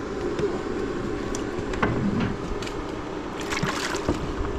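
A small motor running steadily, with a few short knocks and a brief splash of water near the end.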